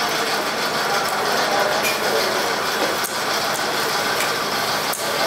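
Steady din of a busy fish market, with a few sharp clicks and knocks standing out about two, three and five seconds in.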